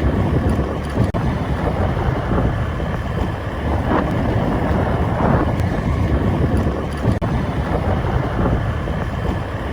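Wind rumbling on the microphone over a steady rushing noise. The noise swells briefly about every second and a half.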